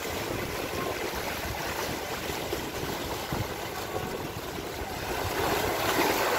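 Wind buffeting the microphone over choppy sea water: a steady rushing noise with a rumbling low end, a little louder near the end.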